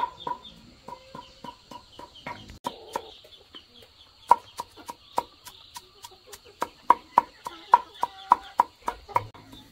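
A large knife chopping shallots on a wooden board: sharp strokes at about three a second, getting louder in the second half. For the first couple of seconds there is instead a quicker, fainter regular ticking.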